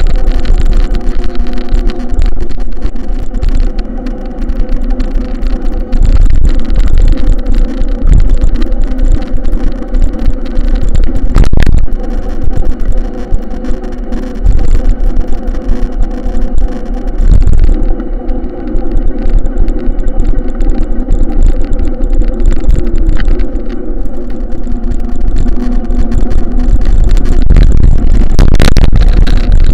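An engine running steadily, with a loud low rumble.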